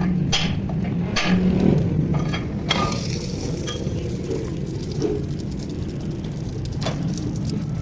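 Workshop noise from truck axle repair: a run of irregular sharp knocks in the first two or three seconds, then only a few scattered clicks, over a steady low hum.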